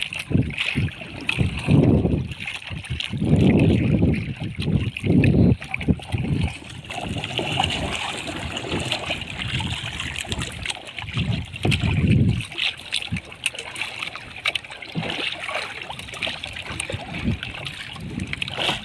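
Sea water splashing and trickling against a small wooden paddle boat as it is paddled along, with irregular low thuds in the first few seconds and again near the middle.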